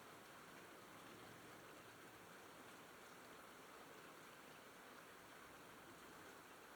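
Faint steady rain falling, an even hiss with the odd drop tick.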